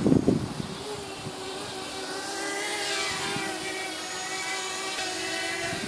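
Sub-200 g 160-size quadcopter's four small brushless motors and 40-45 propellers whining as it hovers low, the pitch rising and falling as it yaws. A short burst of wind buffets the microphone at the start.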